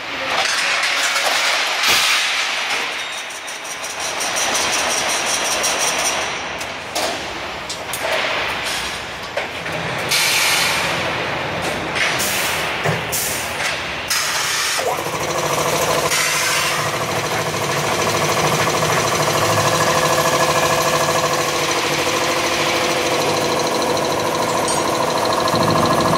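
Rebar threading line machinery running: a noisy mechanical clatter with sharp metal knocks for about the first fifteen seconds, then a steady machine hum made of several held tones.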